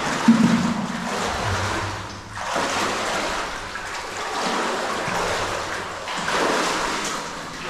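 Water sloshing and splashing around a person wading through a cave pool, in three long surges that break briefly about two and six seconds in.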